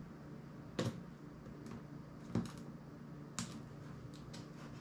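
Small sharp clicks and snaps of a phone's parts being pried and handled during a teardown: three louder clicks among a few fainter ticks, over a low steady hum.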